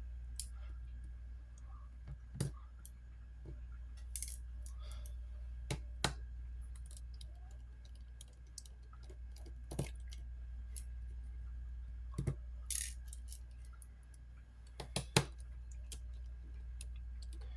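Scattered small clicks and taps, irregular and a second or more apart, from a precision screwdriver and tiny Phillips screws being taken out of a smartphone's frame and set down, over a steady low hum.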